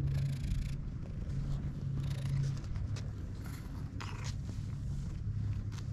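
Domestic cat purring steadily while it is stroked, a low, even purr picked up close.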